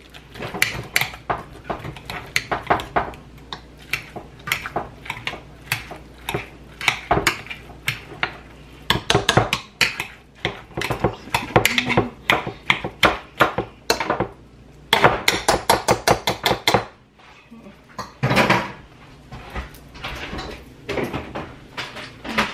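A metal hand potato masher mashing boiled potatoes in a saucepan, knocking against the bottom and sides of the pot in quick repeated clacks with a couple of short pauses.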